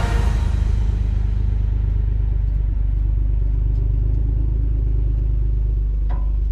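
Landcruiser Prado's engine running with a steady low rumble. A brief higher-pitched sound comes near the end.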